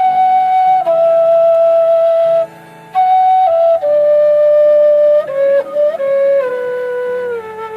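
Low whistle in D (Chieftain V4) playing a slow melody of held notes that steps downward, with a short break about two and a half seconds in and sliding, bent notes in the middle. A steady backing accompaniment plays underneath.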